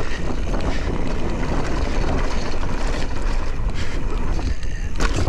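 Wind rushing over a ride-mounted camera's microphone and tyres rolling over a dirt trail as a mountain bike descends at speed, a steady loud rush with a heavy low rumble.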